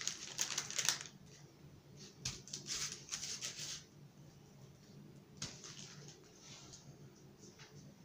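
Hands shaping a raw ground-beef mixture into patties, patting and squeezing it, heard as three short bursts of soft crackling, over a faint steady hum.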